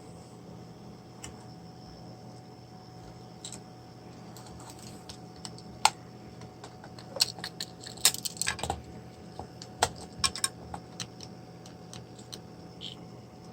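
Scattered sharp clicks and light clatter of small hard plastic parts and tools being handled while a VTech baby monitor camera is taken apart, thickest in a cluster partway through, over a steady faint low hum.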